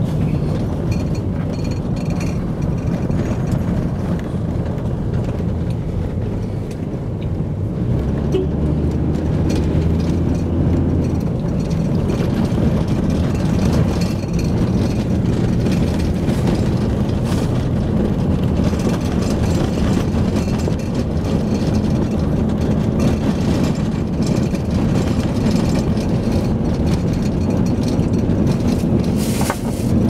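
A vehicle driving along a road, heard from inside the cabin: steady engine and road noise.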